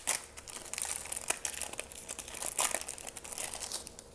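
Wrapper of a 1990 Score NFL Football Series 2 card pack being torn open and crinkled by hand: a run of crackling and crinkling with a few louder tears, dying down near the end.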